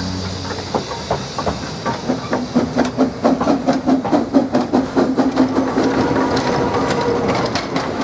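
Steam locomotive Kerr Stuart 4185 and its carriages passing close by: rhythmic beats of exhaust and wheels at about four a second, with steam hiss and a steady low tone underneath.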